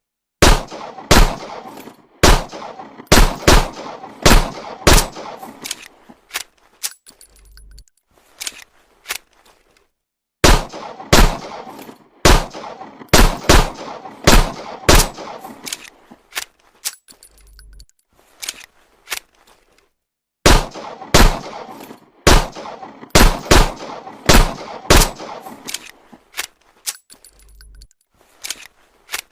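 Homemade sound effect of an M1911 pistol firing: a string of about half a dozen sharp shots with a ringing tail, then a few lighter metallic clicks and a short low hum. The whole sequence plays three times.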